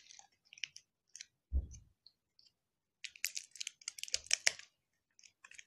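Small plastic toy packaging clicking and crinkling as fingers pick and pry at it to get it open, with one dull knock about a second and a half in and a busier run of clicks past the middle.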